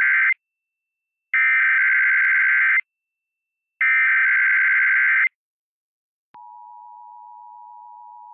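Emergency Alert System SAME header: the end of one burst and then two full bursts of screechy digital data tones, each about a second and a half long with a second of silence between. About six seconds in, the quieter, steady two-tone EAS attention signal begins.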